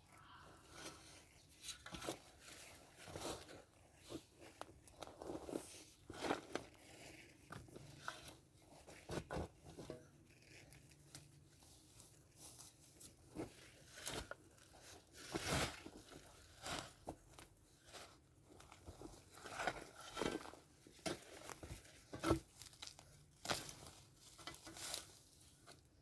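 Irregular crunching, rustling and tearing of soil and plant material being worked by hand to lift potatoes, with sharp crackles scattered throughout.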